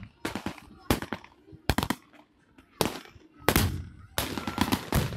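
Irregular gunfire from blank-firing rifles: sharp single shots roughly a second apart, with a quicker run of several shots near the end.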